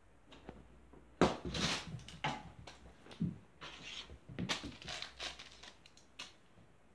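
A crinkly foil wrapper tied to a string rustling and scraping over a carpet as a cat pounces on it and bats it, in irregular bursts with a few soft thuds.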